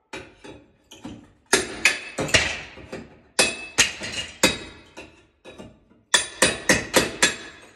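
Hammer striking a steel crowbar wedged against a tiled wall to knock off old ceramic tile: sharp metallic strikes that ring, in three quick flurries of several blows, loud from about a second and a half in.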